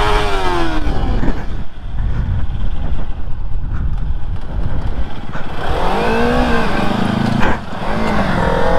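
A motorcycle engine revving, its pitch rising and falling back at the start and again about six seconds in, then holding a steady note briefly, over a constant low rumble.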